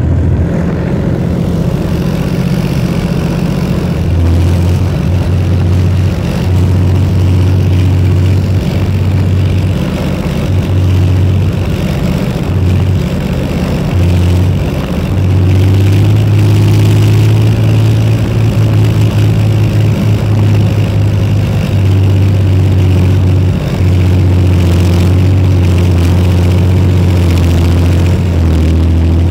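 BVP tracked infantry fighting vehicle's diesel engine running under way, heard up close from atop the hull as a loud, steady low drone. It picks up and gets louder about halfway through, with brief dips as the driver eases off.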